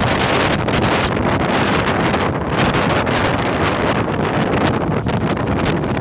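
Wind buffeting a microphone held outside a moving passenger train, mixed with the steady running noise of the train on the rails.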